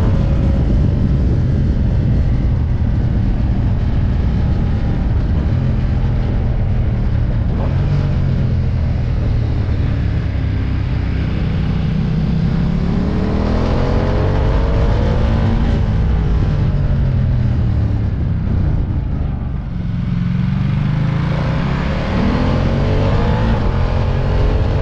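Ducati Diavel's V-twin engine running under way, its pitch climbing twice, around the middle and again near the end, as the throttle is opened, with a brief easing-off between. Heavy wind rumble on the microphone lies under it.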